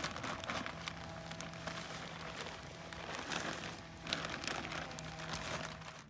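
Plastic bag of garden soil crinkling as the potting soil is poured out of it into a planting hole: faint, irregular rustling and crackling.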